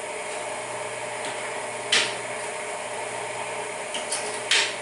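Electric motor of a bearing friction test stand running steadily under load, its hum holding even. Two sharp metallic clinks, about two seconds in and near the end, as steel weight plates are added to the loading lever.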